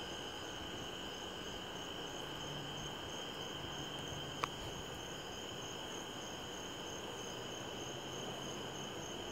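Crickets chirping in a steady chorus: one continuous high trill with a faster, evenly pulsing chirp above it. A single sharp click sounds about four and a half seconds in.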